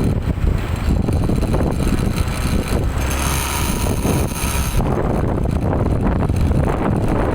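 Heavy road vehicle passing close by: steady engine and road rumble, with wind buffeting the microphone. No horn melody is heard.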